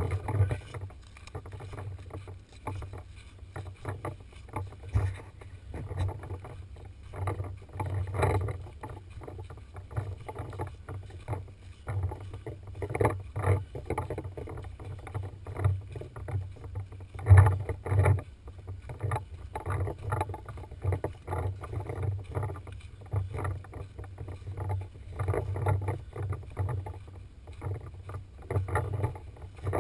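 Irregular knocks and rustle from a camera mounted on a paintball marker being carried and handled, over a low rumble.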